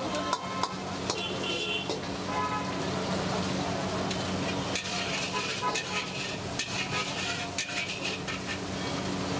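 Chicken pieces, green chillies and capsicum sizzling in hot oil in a metal kadai while a long metal ladle stirs and scrapes them, with sharp clinks of the ladle against the pan, over a steady low hum.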